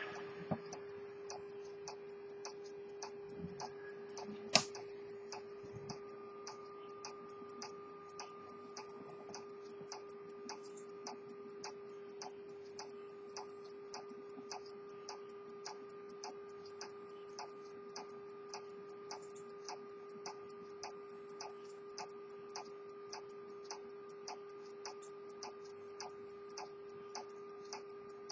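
Early-1900s Edmond Mathey-Tissot minute repeater pocket watch ticking steadily at an even beat. A single sharp click comes about four and a half seconds in, over a steady hum.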